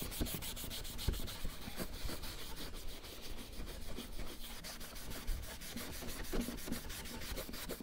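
A medium-grade Scotch-Brite pad scrubbed back and forth over a car wheel trim in rapid, even strokes, scuffing off dirt and shine to key the surface so new paint will stay on.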